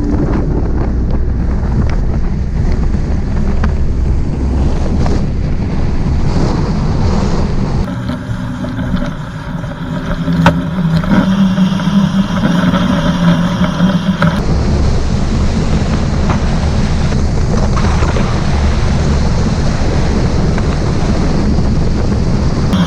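Strong, gusting wind blowing across the microphone on open water, with waves. For several seconds in the middle a steady motor hum sounds under the wind.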